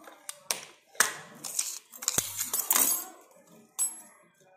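A brass padlock and its keys being picked up and handled on a hard tiled surface: a string of sharp metal clicks, knocks and key jangling, with the busiest clatter just before three seconds in.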